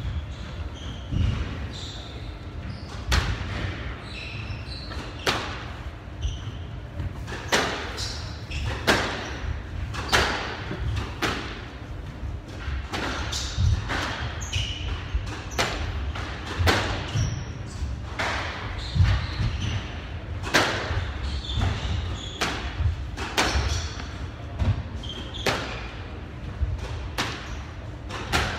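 Squash rally: the ball cracks off rackets and the court walls about once a second, with rubber-soled court shoes squeaking on the wooden floor between shots.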